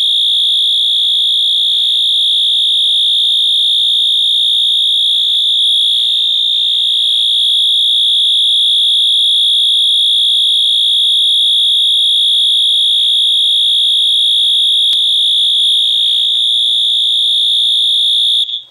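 Wheelock MT24-MCW fire alarm horn sounding its factory-default continuous horn tone: one loud, steady high-pitched tone that cuts off suddenly near the end.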